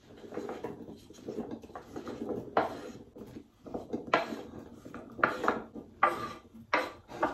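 Diced raw potatoes scraped off a wooden chopping board with a wooden spatula and tumbling into a cooking pot: soft knocks and clatter, with several louder scrapes about a second apart in the second half.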